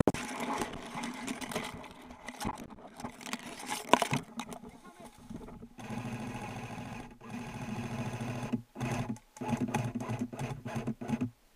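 Airsoft electric rifle firing long full-auto bursts from about six seconds in, its gearbox buzzing rapidly with short breaks between bursts. Before that, rustling and handling noise in the brush with one sharp knock.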